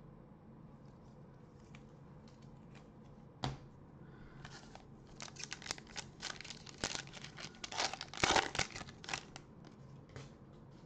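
Plastic cello wrapper of a Panini Prizm basketball card pack being torn open and crinkled by gloved hands. A single sharp click comes about three and a half seconds in, then a run of crackling tears and crinkles for about five seconds, loudest near the end.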